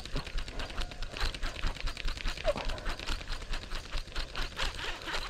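Baitcasting reel cranked fast with a hooked bass on the line, its gears giving a rapid, even clicking.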